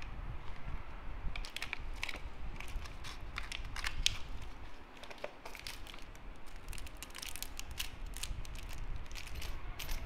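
Plastic packaging crinkling and crackling as the wrapped paint pots and brushes of a painting-by-numbers kit are handled, with many irregular sharp crackles.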